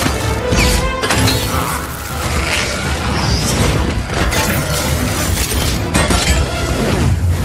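Film battle soundtrack: an orchestral score under a dense stream of sci-fi effects, with energy-beam blasts, crashes and sharp impacts.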